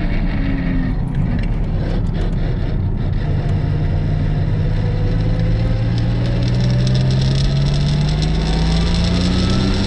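Turbocharged Buick 3.8 L V6 in a Holden VR Commodore ute accelerating under load, its engine note rising steadily in pitch from about three seconds in as the revs climb.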